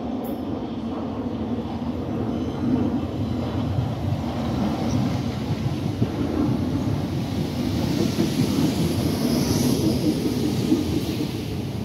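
Southern electric multiple-unit train running alongside the platform: a steady rumble of wheels on rails that grows louder, with a hissing rush around nine to ten seconds in.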